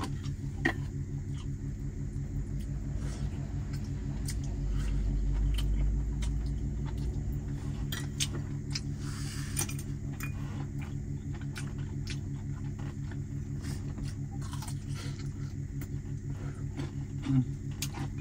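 Chopsticks and a spoon clicking now and then against dishes during a meal, over a steady low mechanical hum with an even pulse. A low rumble swells up for a couple of seconds near the middle.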